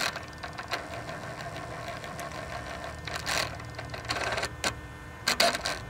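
Electric variable-geometry turbo actuator on a 6.7 L Cummins diesel running its learn cycle after being replaced: a small motor buzzing and clicking through its gear train, with several short louder bursts in the second half as it sweeps the vanes. The cycle completes successfully.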